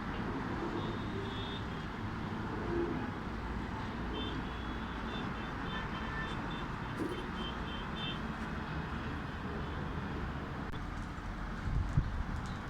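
Steady outdoor background noise with faint high chirping tones, and a short knock near the end.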